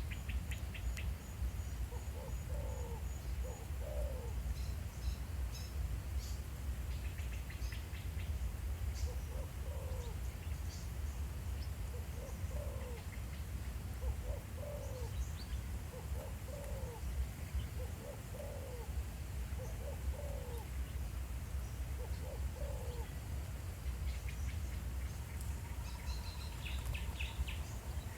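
Spotted dove cooing: short low coo phrases repeated every second or two, with a few small birds chirping faintly higher up and a steady low rumble underneath.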